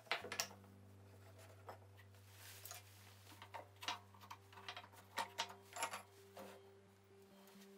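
A pencil scratching marks on wood, with light clicks and knocks of wooden parts being handled. Under it, faint background music of low held notes.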